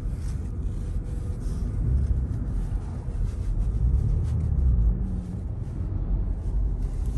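Car driving along, heard from inside the cabin: a steady low rumble of road and engine noise.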